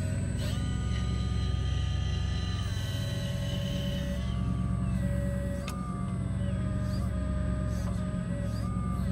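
Radio-controlled scale construction machine at work: high motor and hydraulic pump whines that step up and down in pitch as the controls are moved, over a steady low rumble.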